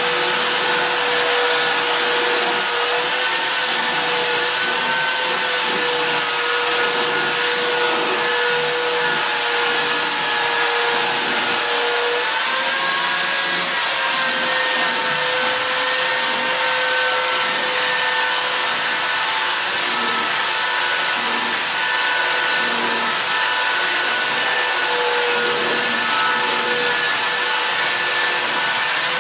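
Handheld electric sander running steadily on wooden floorboards: a motor whine over the hiss of abrasive on wood. The pitch rises a little about halfway through and then settles back.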